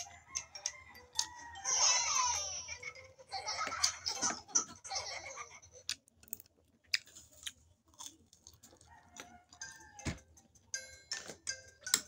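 Close-miked eating sounds: chewing, lip smacks and many short mouth clicks as rice and fried food are eaten by hand.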